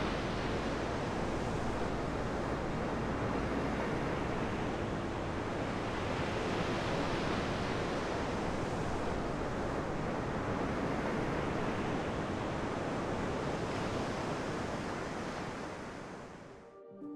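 Sea surf breaking on a sandy beach: a steady, even wash of waves that fades out near the end.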